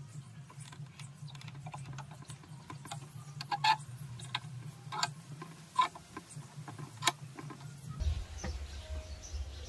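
Clamps being set and tightened on a bent wooden board: scattered metallic clicks and knocks, a few sharper ones in the middle, over a steady low hum that drops to a deeper hum about eight seconds in.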